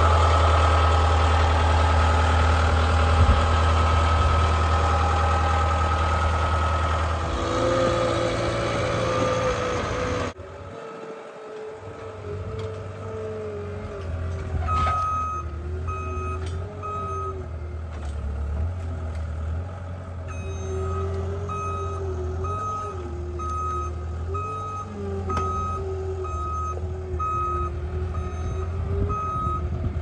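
CAT 226D3 skid steer's diesel engine running loud and steady up close. After a sudden change about a third of the way in, the engine rises and falls in speed as the machine works. From about halfway through, its backup alarm beeps steadily, about one and a half beeps a second, with a short pause partway.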